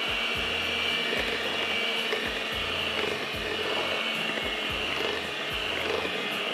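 Electric mixer running steadily at low speed, beating cake batter.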